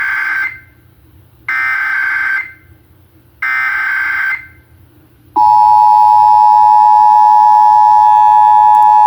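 Emergency Alert System SAME header: three bursts of shrill digital data tones, each about a second long, the first already under way. About five seconds in, the EAS two-tone attention signal starts: a loud, steady dual-tone beep.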